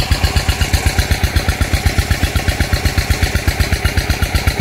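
A small engine, most likely single-cylinder, running steadily with an even low thump about eight times a second.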